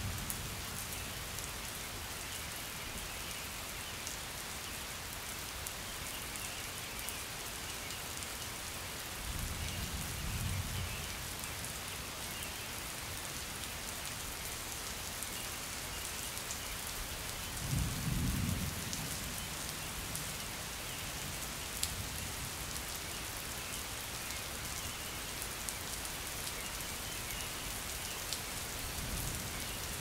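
Steady rain falling, with two low rumbles of thunder, one about ten seconds in and a stronger one a little past the middle.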